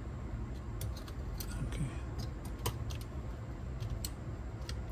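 Scattered light clicks and ticks of small metal and plastic parts being handled as a cassette deck's tape transport is taken apart, over a steady low hum.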